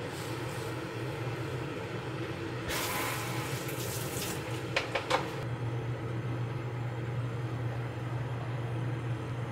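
Water bubbling at the boil in a pot with a block of tofu in it, over a steady low hum. Around the middle the hiss gets brighter for a couple of seconds, with a few sharp clicks.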